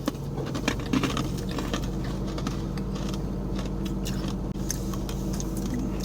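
Freeze-dried Skittles being bitten and chewed: irregular crisp crunches, thickest in the first two seconds and scattered after, over a steady low hum.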